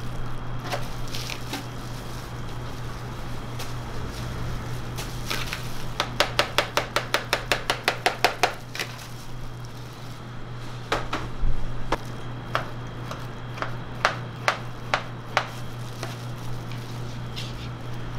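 Kitchen knife slicing banana and kiwi on a plastic cutting board: a quick, even run of about fifteen knife taps a third of the way in, then scattered louder single taps. A steady low hum runs underneath.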